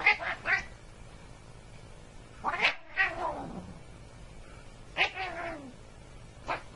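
Cat meowing and yowling in a run of drawn-out calls that fall in pitch. A pair of short calls comes at the start, longer ones come about two and a half and five seconds in, and a short one comes near the end.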